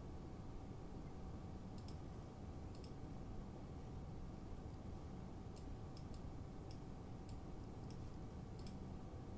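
A string of short, sharp clicks, several in quick pairs, coming at irregular intervals. Under them is a steady low hum with a faint constant tone.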